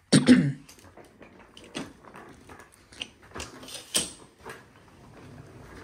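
Handling noise and movement in a small carpeted hotel room: a loud thump right at the start, then scattered clicks and knocks, the sharpest about four seconds in.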